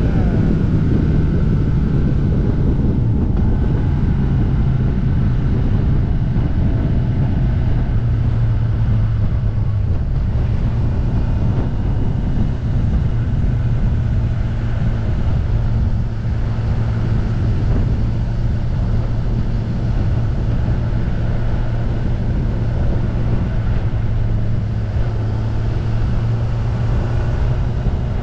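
Kawasaki ZX-10R's inline-four engine running at a steady cruise. Its note drops in the first second, then holds steady, rising slightly about ten seconds in.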